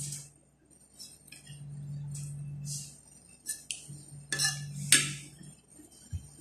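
Metal fork clinking and scraping against ceramic plates: a scatter of short clinks, with two sharper ones about four and five seconds in.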